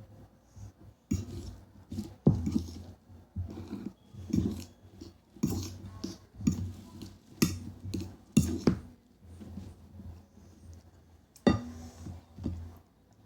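Cutlery and dishes clinking and knocking while someone eats, in short irregular sounds about once a second.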